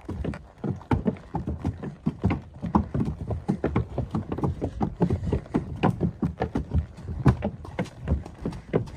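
Horse hooves clopping in a continuous, uneven run of footfalls, several a second.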